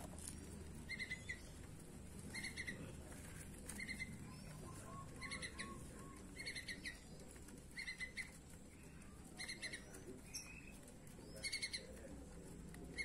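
Faint bird calls: a short high chirp repeated about every second and a half, and near the middle a brief run of about five lower notes.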